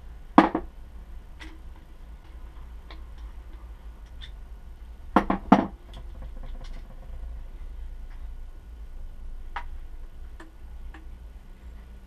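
Tools and bicycle fork parts knocking and clicking as they are handled and set down in a plastic tray during a fork teardown. There is a sharp knock about half a second in, a quick run of three about five seconds in, and light ticks between, over a steady low hum.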